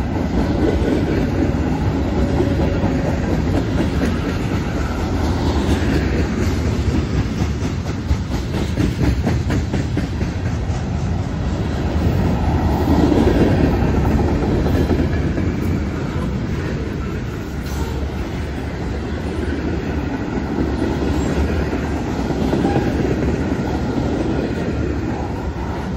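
Freight cars of a mixed freight train rolling past at close range: a steady rumble of steel wheels on rail, with repeated clacks as the wheels cross rail joints, swelling a little about halfway through.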